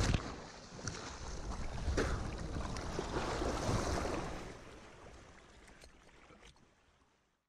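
Sea water splashing and sloshing right around a body-worn camera just after a parachute landing in the water. It goes muffled for a moment as the camera dips under, then splashes, bubbles and wind on the microphone come back as the jumper floats and kicks, and the sound fades out near the end.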